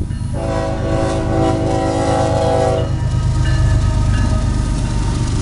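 Union Pacific freight train's diesel locomotive sounding its air horn in one long blast that cuts off about three seconds in, over the heavy steady rumble of the passing train.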